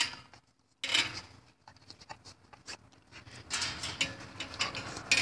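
A dog licking a person's hand through a chain-link fence: quick wet lapping and clicking, getting denser and louder over the last second and a half, with a short dead gap just after the start.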